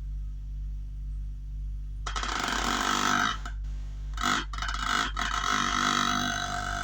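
Subwoofer driven by a car amplifier playing a steady low bass test tone of around 50 Hz. About two seconds in, a loud buzzing rattle joins it and breaks off briefly a few times.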